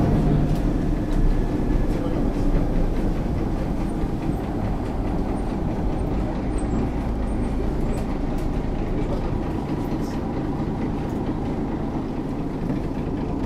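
Interior sound of a 1971 Büssing DE double-decker bus under way: its diesel engine running with a steady low rumble while the body and door fittings rattle.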